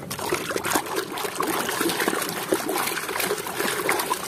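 Muddy water sloshing and splashing in a tub as a plastic toy is swished about by hand, starting abruptly and going on as a busy run of small splashes.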